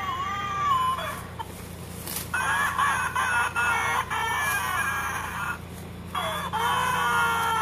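Recorded baby crying played by the Huggies Dry Pants display doll, the cue that the baby is unhappy until her diaper is changed. The crying breaks off briefly about a second in and again near six seconds, then resumes.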